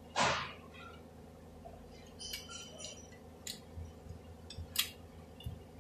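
Small metal clicks and clinks as valve-body parts are handled and pushed into a Ford Grand Marquis transmission valve body, a few of them ringing briefly. A short swish of a part sliding, the loudest sound, comes right at the start. A steady low hum runs underneath.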